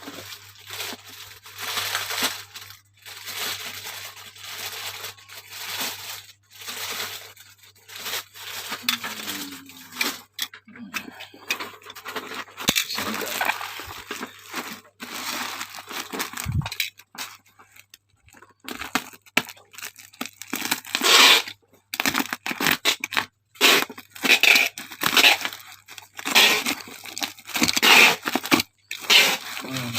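Parcel packaging being torn open and crumpled by hand: a dense run of rustling and tearing that gets louder about two-thirds of the way through.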